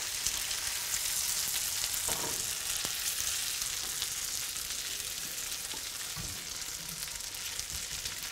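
Wonton-wrapper ravioli sizzling steadily in browned butter in a hot frying pan, with a utensil now and then scraping and pushing them around the pan.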